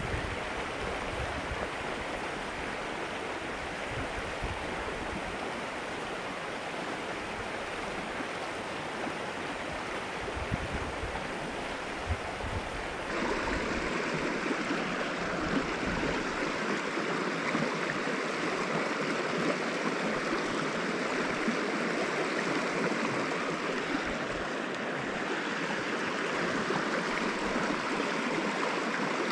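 A shallow mountain river rushing steadily over a rocky riffle. For the first half a low rumble lies under the water. About 13 seconds in the rumble stops and the rush becomes brighter and louder.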